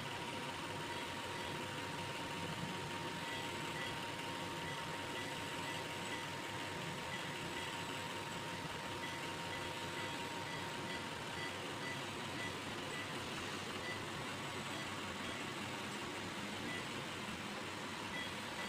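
Steady hiss and hum of intensive-care equipment such as a ventilator, with a faint high tone that fades out about halfway through and faint, evenly repeating short beeps.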